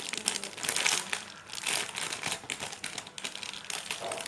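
Crinkling and rustling in irregular bursts from handling and squeezing a marshmallow squishy toy.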